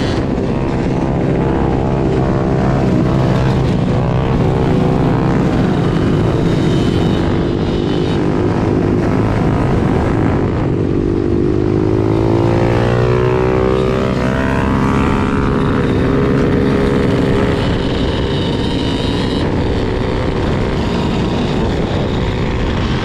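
Yamaha YZ125 two-stroke dirt bike engine running on the road, its pitch rising and falling with the throttle, most plainly in a sweep about twelve seconds in, mixed with the engines of other dirt bikes and ATVs riding alongside.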